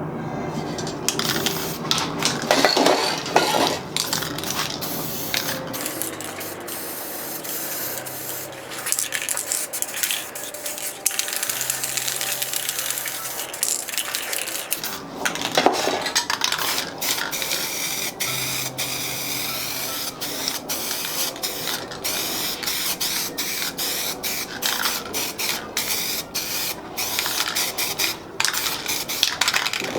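Aerosol spray paint cans hissing in repeated sprays, mixed with many short clicks and taps of cans and tools being handled.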